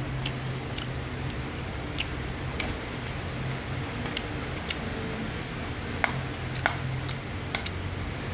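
Metal spatula tapping and scraping against a nonstick frying pan as fried rice is stirred, with irregular clicks, the sharpest a little over halfway through. A steady hiss and low hum run underneath.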